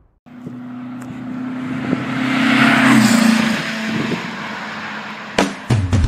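A motor vehicle's engine passing by: a steady note that swells to its loudest about three seconds in, drops slightly in pitch and fades away. Rock music with strummed guitar starts near the end.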